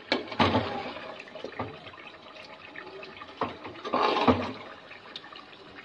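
Beef karahi gravy bubbling and sizzling in oil in an aluminium pot during the bhuna (frying-down) stage, with scattered clicks and a few louder scraping bursts from the metal ladle stirring against the pot, the loudest near the start and about four seconds in.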